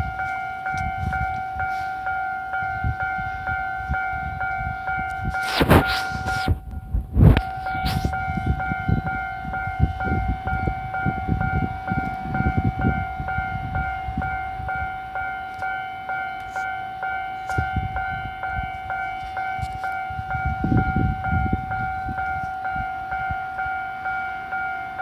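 Railway warning signal sounding a steady electronic tone that swells about once a second, the alert for an approaching train. Low rumbling runs beneath, and two sharp knocks come about six seconds in, a second and a half apart.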